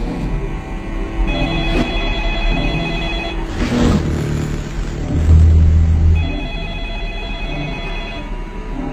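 A telephone ringing twice, each ring a pulsing bell about two seconds long. Between the rings a rush of hiss rises, then a deep hum swells about five seconds in, the loudest moment.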